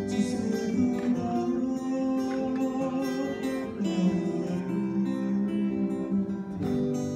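Music played on acoustic guitar, with sustained chords and notes changing every second or so.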